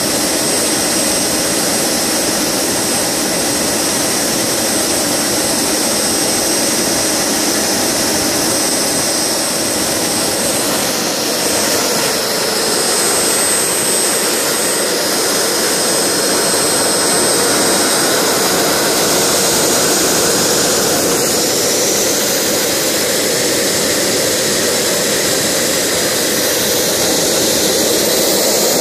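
Small PST Jets gas-turbine power generator (a miniature turboshaft engine driving an electric generator) running steadily: a loud, even jet rush with a thin high whine over it.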